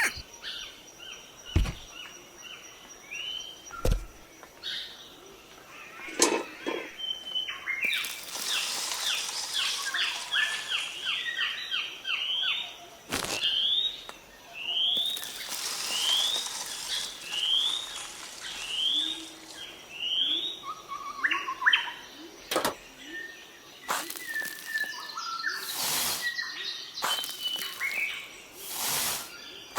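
Birds chirping and calling, including a run of repeated short rising chirps about one a second, with a few sharp knocks or clicks scattered through.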